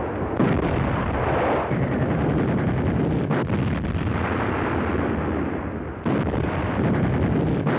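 German 10.5 cm leFH 18 field howitzers firing: heavy gun reports over a continuous rumble. There are sharp reports about half a second in and again about six seconds in.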